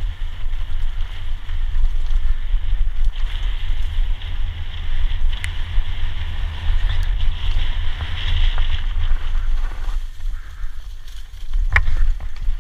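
Wind buffeting a GoPro's microphone as a mountain bike rides fast down a dirt forest trail, mixed with tyre noise and the bike rattling over the ground. It eases briefly near the end, then a sharp knock.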